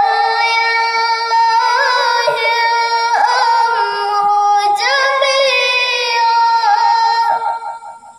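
A young girl chanting a Quran recitation in melodic style into a handheld karaoke microphone. She holds long, ornamented notes, takes one short breath a little past halfway, and fades out near the end.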